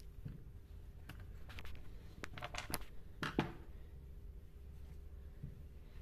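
A few light clicks and small knocks of metal and plastic chainsaw parts being handled during a teardown, with a short scraping rattle about three seconds in.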